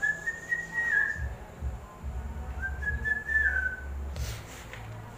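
Someone whistling two short phrases, each a held high note that steps down in pitch at its end.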